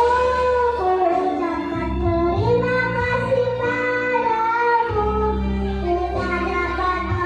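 Kindergarten children's choir singing a melody together, over a steady instrumental accompaniment with sustained low notes.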